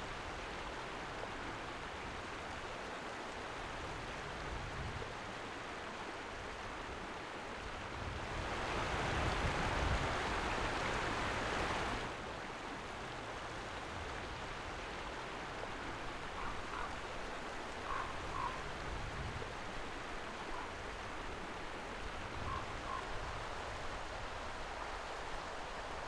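A small stream running over rocks, a steady rush of water that grows louder for about four seconds in the middle. A few faint short chirps come through it in the later part.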